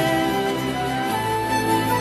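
Instrumental background music with held notes; the bass changes note about a second in.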